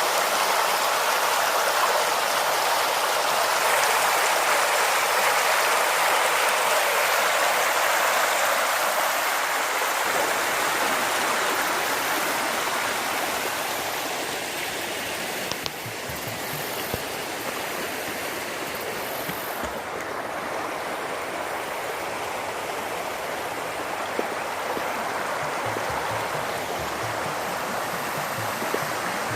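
Floodwater rushing and churning steadily, a continuous hiss of water that eases a little in level about halfway through.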